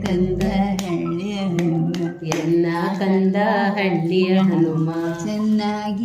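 An elderly man's voice singing a Kannada Haridasa devotional song (Dasara pada) in slow, long-held notes, with a few soft clicks.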